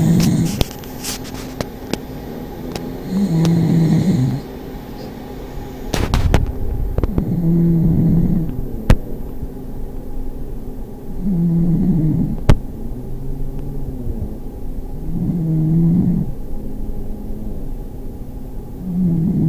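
Pug snoring in slow, regular breaths, one snore about every four seconds. A few sharp clicks fall between the snores, the loudest about twelve seconds in.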